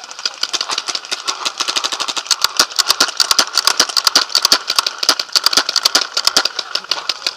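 Rapid, irregular paintball marker fire from several markers at once, many pops a second. It grows louder and denser about two seconds in and thins out near the end.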